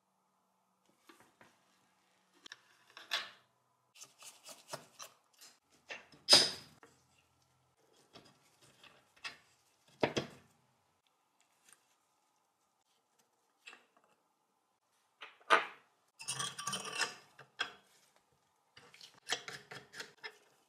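A hand tool clicking, knocking and scraping against the metal housing and a screw of an old Pathé Baby projector mechanism as it is taken apart. Irregular taps with a few sharper knocks, the loudest about six seconds in, then bursts of rasping scrapes near the end.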